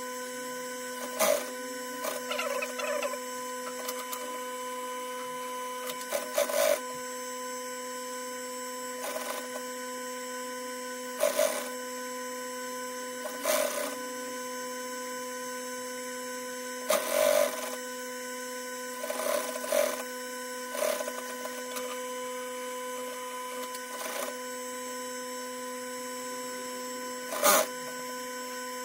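Industrial sewing machine stitching binding tape onto a denim apron edge in about ten short runs, each under a second. Its motor hums steadily in between.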